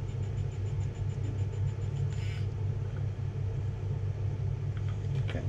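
3D pen's filament feed motor running steadily with a low hum while it extrudes plastic onto a plastic case seam. A faint regular ticking stops about two seconds in, with a short hiss at the same moment.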